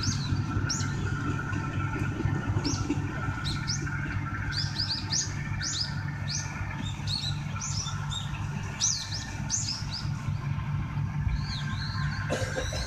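Birds chirping repeatedly in short, high notes over the steady low drone of a departing Kominato Railway KiHa 200 diesel railcar as it pulls away into the distance.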